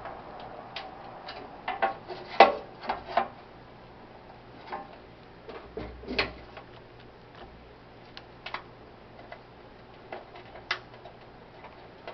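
Irregular light clicks and taps of small metal camp-stove parts and tools being handled during reassembly, with a cluster of sharper knocks about two seconds in and another around six seconds in.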